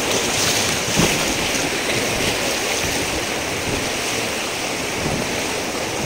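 Steady rush of white-water river rapids around an inflatable raft.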